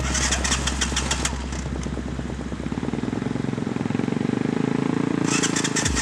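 Quad bike engine running, its sound building up about halfway through, with rapid sharp ticking in the first second and again near the end.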